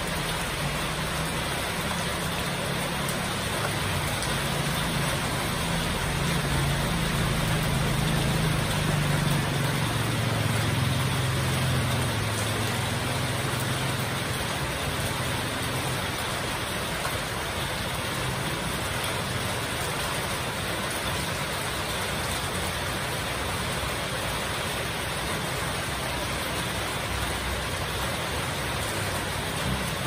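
Heavy rain pouring steadily. A motor vehicle's engine hum rises and fades as it passes under the rain, loudest around a third of the way in.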